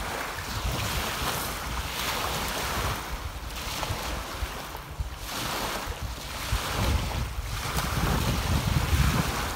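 Small lake waves lapping on a stony shore, their wash rising and falling every second or two, under wind buffeting the microphone.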